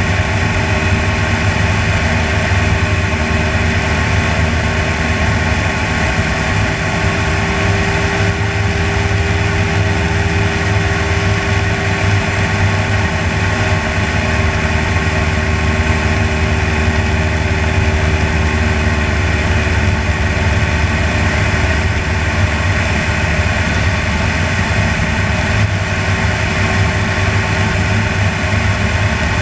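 Engine and propeller of a small propeller-driven aircraft running steadily in level cruise flight, an even, unchanging drone with a constant low hum and a steady tone.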